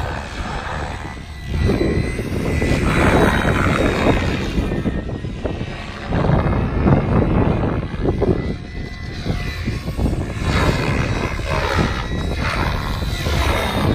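Electric RC helicopter flying aerobatics, its main rotor blades whooshing loudly in swells that rise and fall as it climbs and flips. A faint steady high whine runs under the rotor noise.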